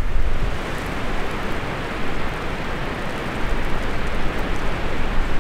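Strong, gusty typhoon-driven wind rushing steadily through mountain shrubs and grass, with some low buffeting on the microphone at the start.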